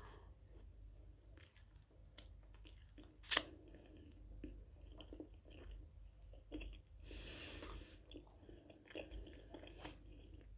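Close-up mouth sounds of a person biting into and chewing a sugar-coated Quarkbällchen (fried quark ball), with many small wet clicks. There is one sharp click about three and a half seconds in, and a short hissing noise around seven seconds.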